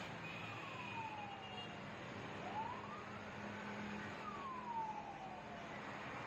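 A distant siren wails slowly: its pitch falls, rises, then falls again, over steady street noise.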